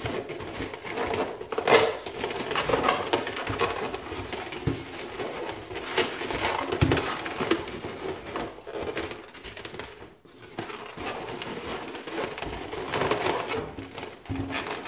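Inflated latex balloons squeaking and rubbing against each other and against the hands as a twisted balloon bow is adjusted, with irregular short squeaks and a few soft knocks.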